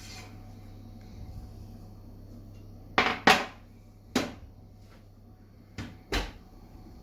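Kitchenware clattering: five sharp knocks, two close together about three seconds in, one a second later, and two more near the end.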